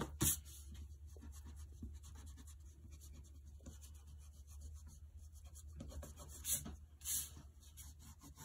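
Pencil lines being erased on drawing paper: intermittent scratchy rubbing strokes, a few louder ones just after the start and about six and seven seconds in, over a low steady hum.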